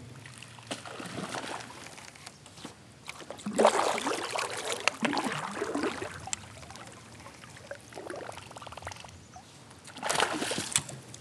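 Water splashing in several bursts as a hooked fish thrashes at the surface on the line, loudest about four seconds in and again near the end.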